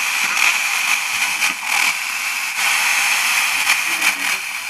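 Static hiss from a Trevi 12-band portable radio as its tuning wheel is turned by hand across the FM band between stations. The hiss is steady, with several short crackles as the dial passes through signals.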